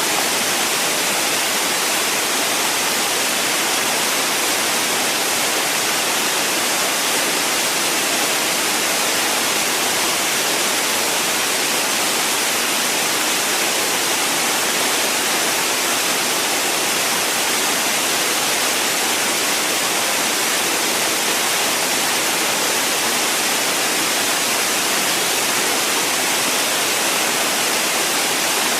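Waterfall rushing steadily: an even, hissy wash of falling water with little low rumble and no change throughout.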